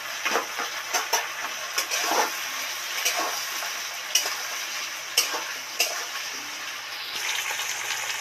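Potato pieces and chopped tomato sizzling steadily in hot oil in a kadai. A metal spatula stirs them, scraping and knocking against the pan several times.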